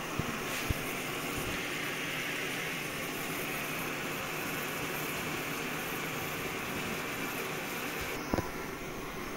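Steady hiss of a portable camping stove's burner under an aluminium pot, with tomatoes and butter sizzling in it. The brighter part of the hiss drops away about eight seconds in, followed by a light knock.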